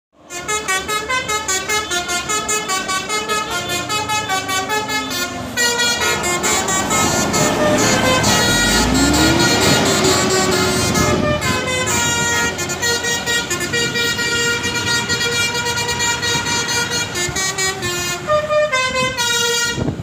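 Basuri telolet bus horn, a multi-tone musical horn, playing a tune. Quick notes come about four a second, then long held chords over road noise, then quick notes again near the end.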